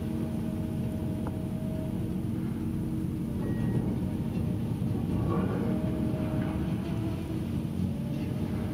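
Demolition excavator's engine and hydraulics running steadily, a low hum with several held pitches, as its crusher jaw works through reinforced concrete. A short patch of crackling comes about five seconds in, as concrete crumbles and debris falls.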